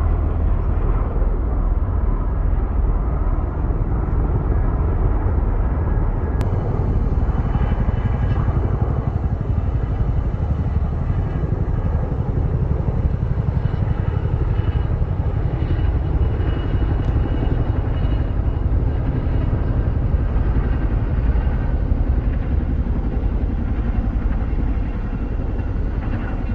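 Steady rumble of jet aircraft engines, with a faint high whine above it.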